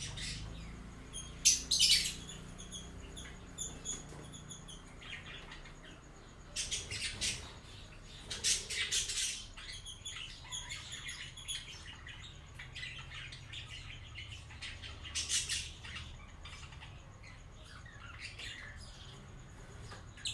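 Birds chirping in short, scattered bursts, loudest about two seconds in and again around seven to nine seconds and fifteen seconds in, over a steady low hum.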